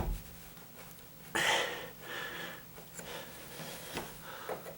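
Knife cutting and scraping into a wooden door jamb in a few short strokes, the strongest about a second and a half in, notching out wood to reseat a door strike plate.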